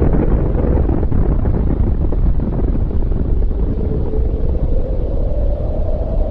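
Loud, sustained low rumble of a large explosion, its sharper upper hiss dying away after the first second or two and leaving a deep roar.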